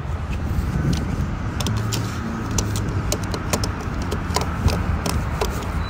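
Steady low rumble of a car engine or traffic, with scattered sharp clicks and rustling from about a second and a half in as someone climbs into a car.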